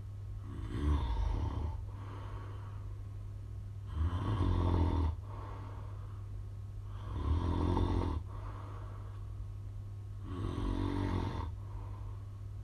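A man with sleep apnea snoring: four loud snores about three seconds apart, each lasting about a second, over a steady low hum.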